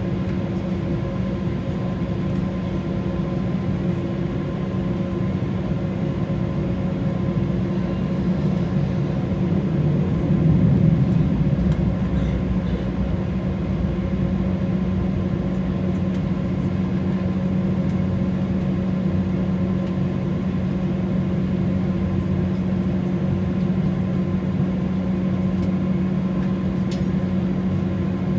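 Cabin noise inside an Embraer E190 on the ground after landing: a steady low hum with fainter higher tones over the engines' and air system's rush. It swells briefly about ten seconds in.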